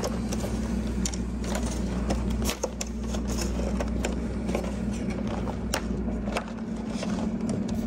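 Hand screwdriver work starting small screws into a convertible top's header rail: scattered small clicks and scrapes of tool, screws and top material being handled, over a steady low hum.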